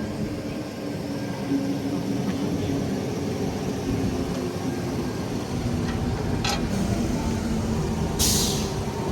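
Sydney Trains Tangara electric train running with a steady low hum, with a brief hiss of released air about six and a half seconds in and a louder, short air hiss about eight seconds in.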